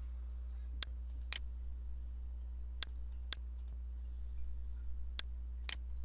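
Computer mouse clicking six times, in three pairs about half a second apart, as check boxes in a drop-down list are ticked, over a low steady hum.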